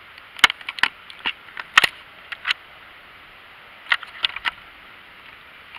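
A run of about ten sharp clicks and taps at irregular intervals: a cluster in the first two and a half seconds, then three close together about four seconds in.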